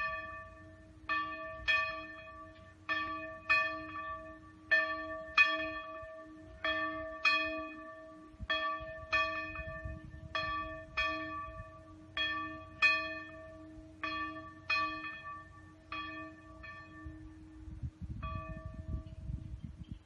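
A single church bell ringing, struck in pairs about every two seconds, each strike ringing on over a steady hum. The last strike comes near the end, followed by a low rumble.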